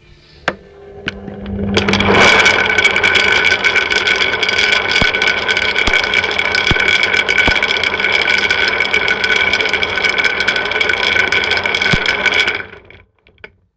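Washing machine drum turning with a load of mussels, the shells clattering against each other and the drum over a steady high motor whine. It starts about two seconds in, after a couple of single clicks, and stops abruptly near the end.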